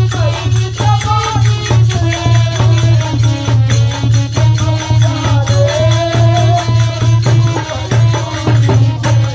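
Indian devotional folk music: a wavering melody line over a steady, pulsing low drum beat, with regular higher percussion clicks on top.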